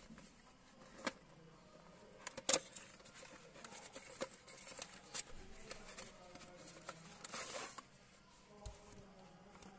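A cardboard sunglasses box being handled and opened by hand: scattered clicks and taps of card, the loudest about two and a half seconds in, then a short scrape of cardboard sliding about seven seconds in.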